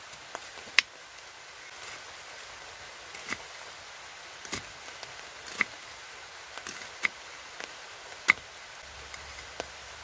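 Knife chopping an onion on a wooden cutting board: sharp, irregular knocks of the blade on the wood, about a second apart, over a steady hiss.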